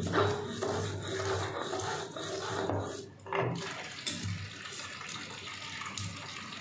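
Stone roller (batta) grinding cumin seeds and green chillies on a flat grinding stone (sil): a rough, rasping stone-on-stone scrape. It drops off briefly about three seconds in and then starts again.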